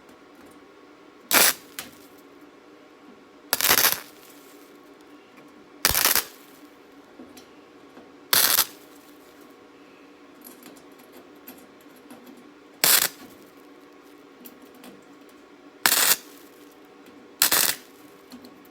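Welder laying short tack welds on thin sheet-steel patches, seven brief bursts of crackling arc a few seconds apart, over a steady machine hum.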